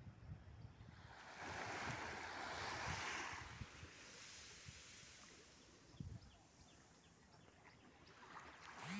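Small waves washing onto a sandy beach: a soft swell of surf about a second in that fades away, then faint lapping water.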